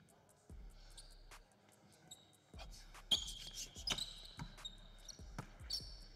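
Basketball dribbled repeatedly on a hardwood gym floor in a 1v1 game. From about three seconds in, sneakers squeak sharply on the court between the bounces.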